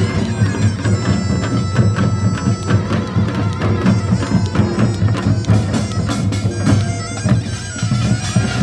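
Korean nongak band playing: a taepyeongso shawm holding a loud, nasal melody over a dense, driving beat of drums and small gongs.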